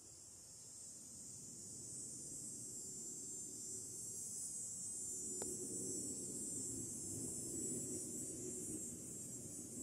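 A steady high-pitched insect chorus, with a low rumble that swells in from a couple of seconds in and becomes the loudest sound, and a single faint click about halfway through.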